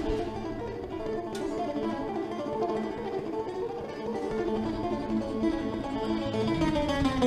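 Greek bouzouki solo: a melody of plucked notes on the metal strings.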